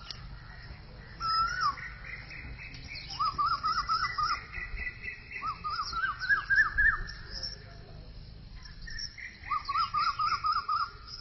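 Birds calling: short whistled notes and quick trilled phrases of rising and falling notes, in several bouts, with fainter high chirps between them.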